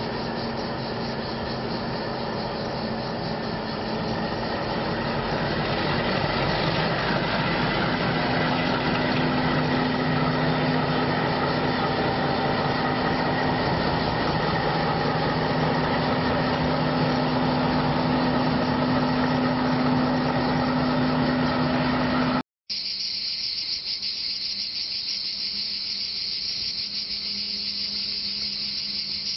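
MLW-built diesel locomotive running at low speed with a freight train, a steady engine drone with a low hum that grows louder over the first several seconds. After a cut about three-quarters of the way through, cicadas buzz steadily over the faint engine of the locomotive farther off.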